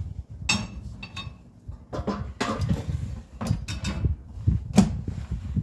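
A series of sharp knocks and clacks from kitchenware being handled, over a low rumble.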